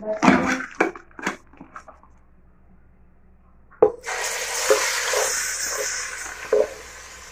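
Wet onion-tomato and garlic-ginger paste dropped into hot oil in a steel pot, sizzling loudly. The sizzle starts suddenly about four seconds in and slowly dies down. Before it come a few sharp knocks.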